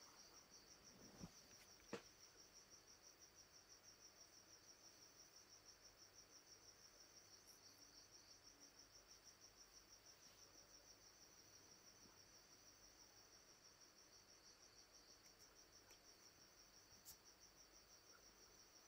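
Near silence: room tone with a faint, steady, high-pitched pulsing trill of a cricket, and a few faint clicks.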